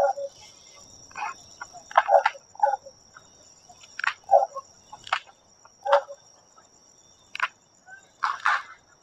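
A steady, high-pitched night chorus of insects, with short sharp sounds cutting in irregularly about once a second.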